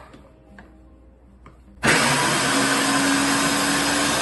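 Countertop blender's motor starts suddenly about two seconds in, spinning up quickly and running steadily at speed as it chops half a carrot. Before it starts there are a couple of faint clicks as its buttons are pressed.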